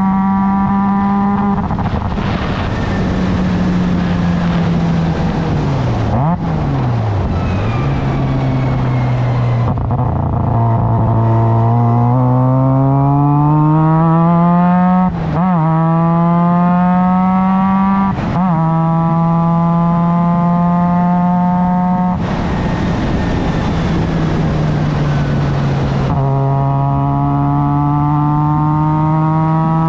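Onboard sound of a Formula Mazda race car's rotary engine at racing speed. The revs drop and climb again through the corners, rising steadily for several seconds in the middle with two quick upshifts, each a brief dip in pitch.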